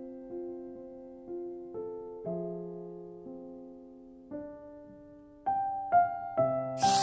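Soft, slow piano music: single notes and chords struck and left to fade, a little over one a second, getting quicker near the end. Just before the end a loud crackling rustle cuts in over the piano.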